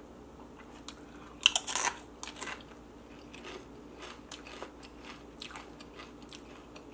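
A salsa-dipped tortilla chip bitten with one loud crisp crunch about a second and a half in, then chewed with scattered softer crunches.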